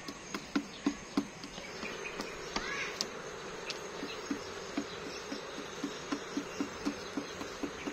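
Hen pecking feed off a wooden board: a string of short, sharp taps, two or three a second, over a steady background drone of insects.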